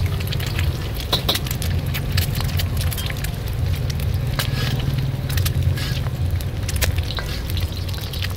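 An egg frying in hot oil in a steel wok, with irregular crackling and spattering as a ladle bastes it, over a steady low rumble.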